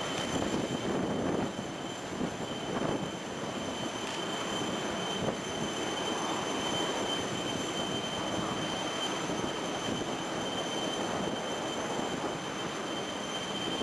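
Steady high-pitched turbine whine from an Airbus A380 being pushed back, over a broad rumble of apron noise.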